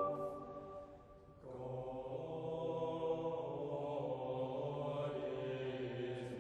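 Choir singing: a held chord dies away over the first second and a half, then the voices come back in softly on a new sustained chord that is held.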